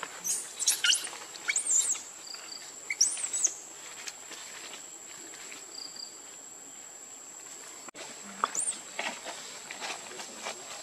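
Forest ambience: a steady high-pitched insect drone, with several short high chirping calls in the first few seconds and one more near the end, and faint scattered clicks and rustles.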